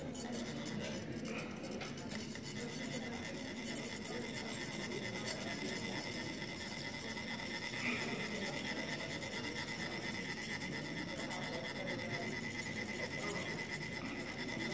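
Metal chak-pur funnels rasping continuously as their ridged sides are rubbed with a rod, the vibration trickling fine coloured sand onto a Tibetan sand mandala; several funnels scrape at once.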